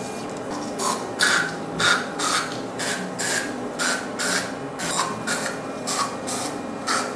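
Soocas Neos electric toothbrush scrubbing teeth: a wet rasping brush stroke repeated about twice a second.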